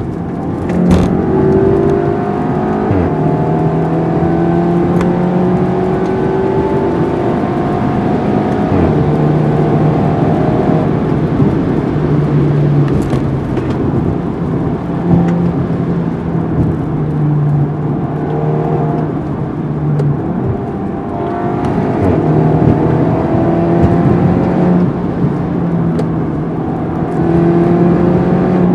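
Audi A4 B9 Allroad with a Revo Stage 2 tune, catless downpipe, Vibrant bottle-style resonator and Street Power muffler, heard from inside the cabin at highway speed: a steady exhaust drone whose pitch rises as the car accelerates in the first few seconds, again past the middle, and near the end, over road noise.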